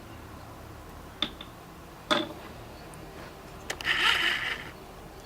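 Handling a cosmetics blush container: a few sharp plastic clicks and taps, then a brief scraping sound about four seconds in.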